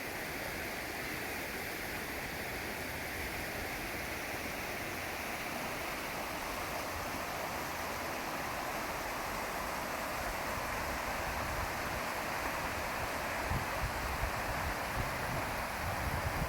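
River water rushing steadily. In the last few seconds, wind gusts buffet the microphone with a low rumble.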